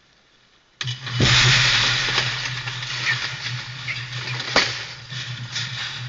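A sudden loud rush of noise about a second in, over a steady low hum, with a sharp knock near the end: a hog trap being sprung and the group of feral hogs inside bolting.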